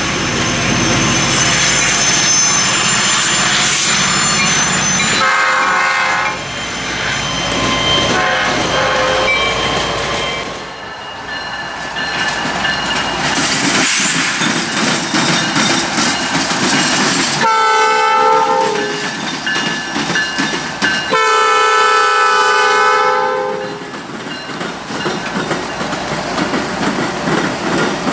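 Freight train noise, then a CN light-power move of GE locomotives sounding two horn blasts, a short one followed by a long one. After the horn, the locomotive wheels clack rhythmically over the rail diamond.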